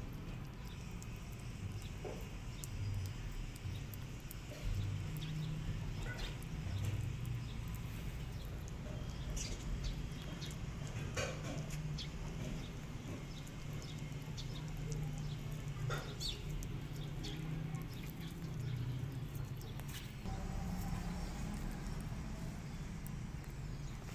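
Kittens eating wet food off a paper plate: scattered short clicks and smacks of chewing and licking over a steady low rumble.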